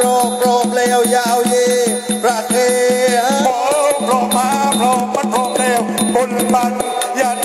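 Southern Thai Nora (Manora) ensemble playing: a wavering, gliding melody on the pi oboe over fast, even drum and percussion strokes.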